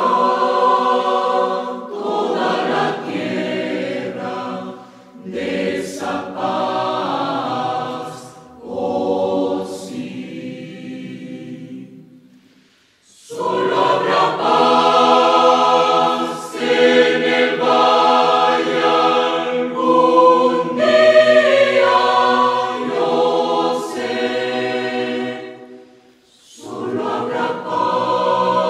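Youth choir singing a Spanish-language hymn in phrases, with a brief near-silent pause about twelve seconds in, then a long sustained phrase and another short break near the end.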